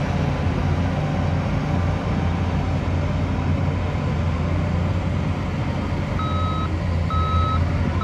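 Heavy diesel engines of Shantui crawler bulldozers running steadily under load. Near the end, a reversing alarm starts beeping, twice, about a second apart.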